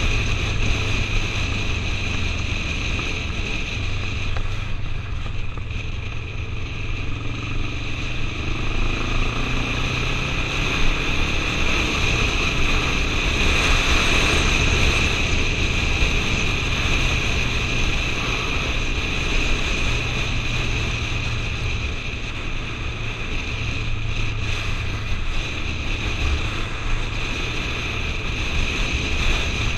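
Motorcycle engine running at a steady cruise, heard through heavy wind rush on a helmet-mounted camera; the wind swells about halfway through.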